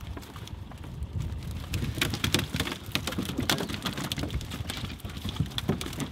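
Freshly caught fish tipped out of a net bag onto a wet checker-plate boat deck, flopping and slapping against it in an irregular patter of wet slaps that thickens about two seconds in.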